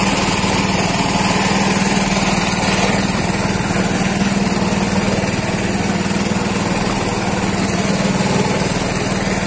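Small engine of a hookah-diving air compressor running steadily at a constant hum, supplying air down the hoses to a diver underwater.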